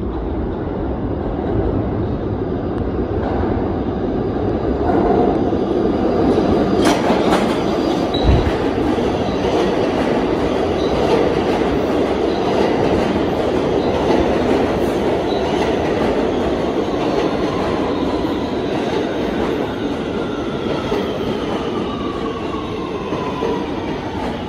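2023 Kawasaki R211A subway train arriving and running past along an underground platform: steady loud rumble of wheels on rail, a sharp clank about seven seconds in and a low thud just after. Near the end a falling whine as the train slows.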